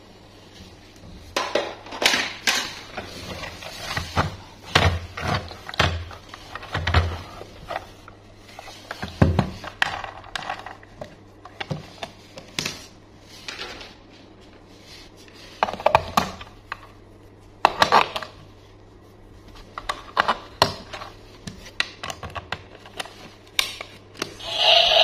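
Irregular clicks, taps and knocks of hard plastic from a toy bus being handled, as the battery compartment cover on its underside is lifted off and pressed back into place.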